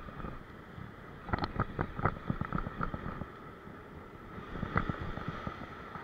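Waves breaking and washing over a rock ledge, with wind on the microphone. Two runs of quick sharp clicks come through, one starting about a second in and a shorter one near the end.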